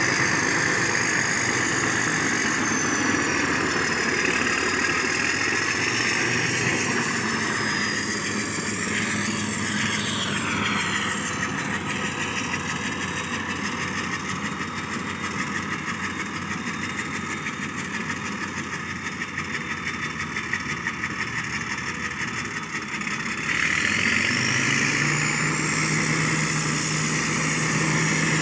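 Caterpillar 12F motor grader's diesel engine running steadily as the grader works. Near the end it revs up and gets louder, with a rising whine.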